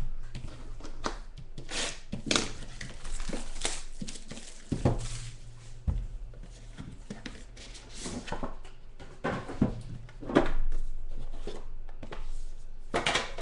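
Plastic shrink wrap being torn and crinkled off a trading card box, then the box's lid being handled and lifted off. Many short, irregular rustles, snaps and light knocks.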